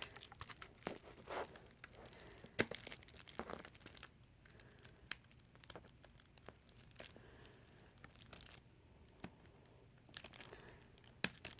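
Packaging of CD singles being opened by hand: quiet, scattered tearing and crinkling with short clicks.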